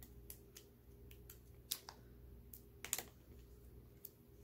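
Faint, scattered clicks and crinkles of a sealed snack-pastry wrapper being picked and pulled at by fingers in a struggle to tear it open, with two sharper clicks about a second and a half and three seconds in.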